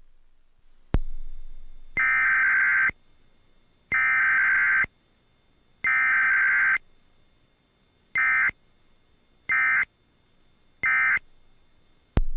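Emergency Alert System SAME data bursts: three long buzzing digital bursts about a second apart, then three short end-of-message bursts, after a click about a second in.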